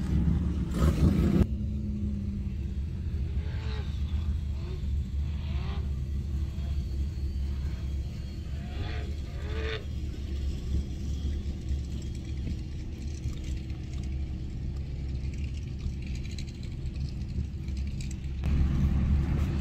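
Steady low rumble of a 4x4's engine and tyres heard from inside the cabin, with a few faint short voice-like sounds. A louder burst of open-air vehicle noise comes just at the start and again near the end.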